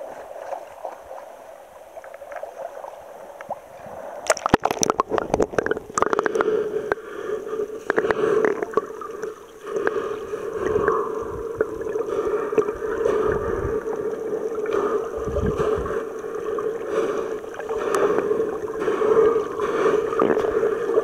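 Shallow sea water lapping at the surface, then splashing and knocks about four seconds in as the camera plunges under. After that comes muffled underwater gurgling and water movement, heard through the submerged camera.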